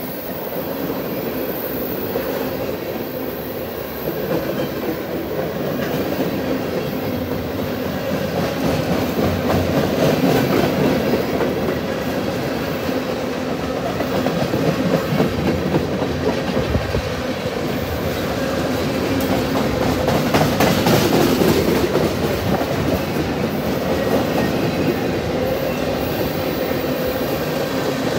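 CSX freight train rolling past, its cars' wheels clattering steadily over the rail joints.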